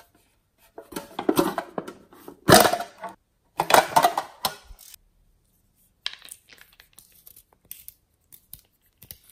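A Hello Kitty-shaped metal tin being handled and opened: scraping, rattling clatter with a sharp loud knock about two and a half seconds in and a second burst just after. Then light scattered clicks and taps as a glass nail polish bottle is taken out of it and handled.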